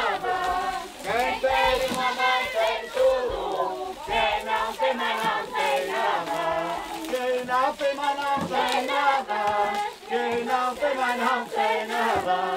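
A group of voices singing a traditional Portuguese folk song together, in phrases with brief pauses between them.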